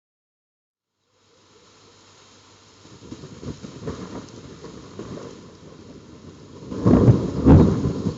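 Thunder rumbling over steady rain, starting after about a second of silence and swelling to its loudest about seven seconds in.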